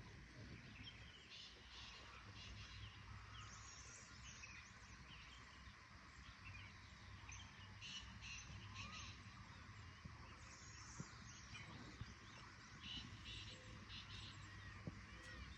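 Faint birds chirping and calling, short scattered notes, over a low steady background hum.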